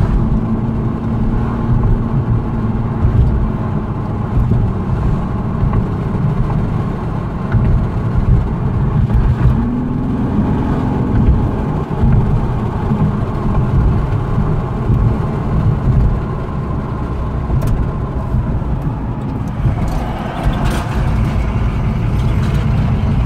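A car driving along a city street, heard from inside the cabin as a steady rumble of engine and road noise. The engine note rises briefly about ten seconds in.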